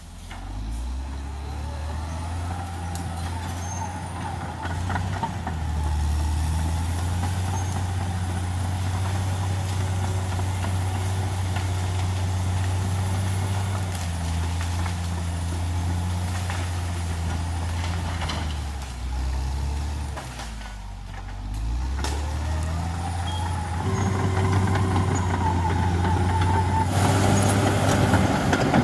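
Caterpillar D6R XL bulldozer's diesel engine running steadily with a higher whine above it. The engine drops in pitch and level about two-thirds of the way through, then revs back up and is loudest near the end.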